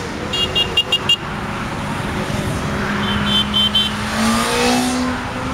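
Motorway traffic with a motorcycle engine that swells and drops in pitch as it passes close by near the end. Two quick runs of four or five short, high-pitched beeps come about half a second in and again about three seconds in.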